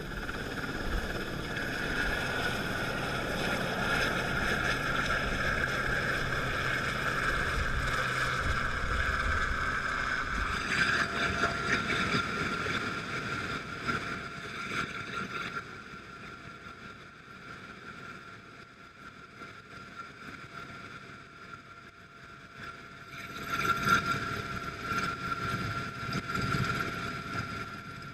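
Helicopter turbine engines and rotors running: a steady high whine over rushing rotor and airflow noise with a low beat. It drops in level about halfway through and swells again for a few seconds near the end.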